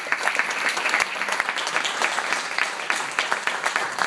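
Theatre audience applauding, many hands clapping densely and steadily.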